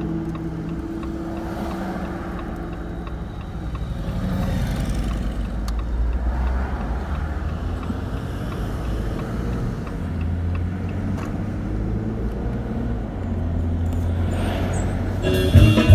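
Car driving, heard from inside the cabin: a steady low engine and road rumble, with the engine's pitch rising and falling as the car speeds up and slows. Guitar music cuts in near the end.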